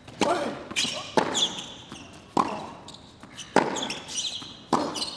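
Tennis ball struck by rackets in a rally: a serve, then sharp hits back and forth, about one every 1.2 seconds.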